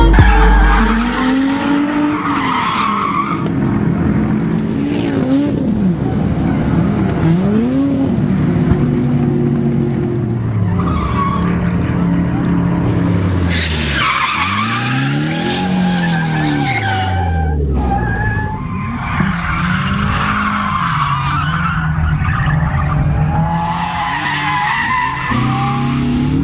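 Drift cars sliding sideways on track: engines revving up and falling back again and again, with tyres squealing through the slides.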